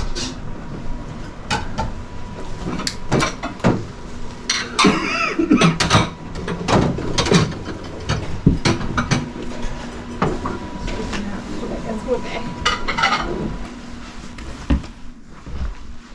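Indistinct voices of several people in a room, with frequent small clinks and knocks of objects being handled.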